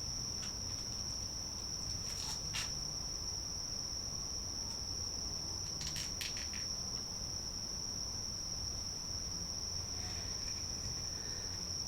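Steady high-pitched insect chorus, one unbroken shrill tone, with a few faint clicks about two and a half and six seconds in.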